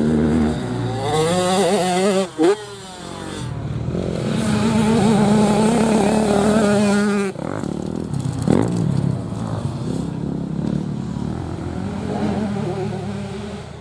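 Grasstrack motorcycle engine revving as the bike is ridden, its pitch rising and falling with the throttle. A long high-revving stretch in the middle, a quick blip and drop about eight and a half seconds in, then lower, uneven running.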